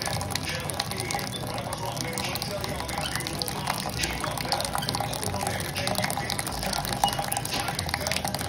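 Tomato purée being poured and sloshed, with wet drips and small splashes throughout.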